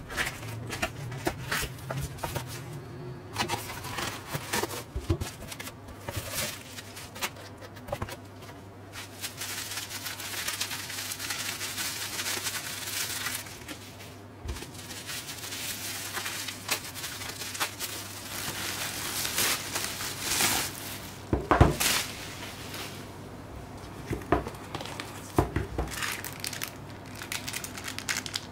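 A cardboard shipping box being cut open and its packing handled: cardboard, bubble wrap and clear plastic rustling and crinkling, with scattered taps and knocks. The loudest knock comes about three quarters of the way through. A faint steady low hum runs underneath.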